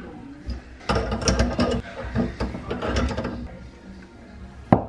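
Small metal clicks and rattles of a faucet supply line's nut being handled and threaded by hand onto a chrome angle stop valve, with one sharp click near the end.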